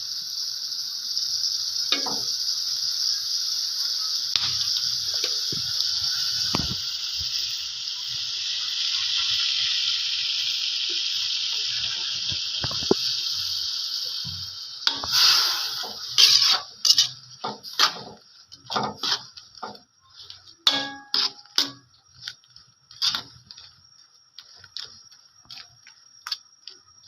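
Sprite added to a hot pan of shrimp in garlic butter, hissing and sizzling steadily for about fifteen seconds. Then a utensil clinks and knocks against the pan in short, irregular strokes as the shrimp are stirred.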